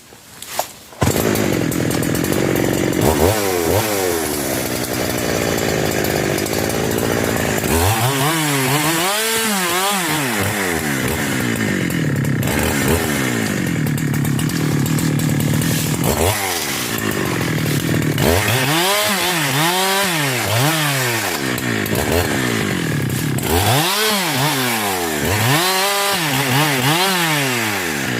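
A 372 two-stroke chainsaw starting about a second in, after a few short pulls, then running and being revved up and down several times, its pitch rising and falling with each rev.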